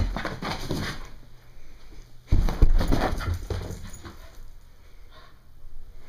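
A Brittany puppy at rough play right at the microphone, with scuffling, rustling and bumps from the camera being jostled. The loudest knocks come a little over two seconds in.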